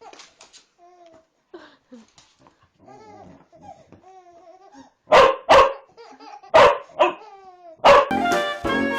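A dog whining softly in short pitched calls, then barking loudly about five times in the second half. Music starts just before the end.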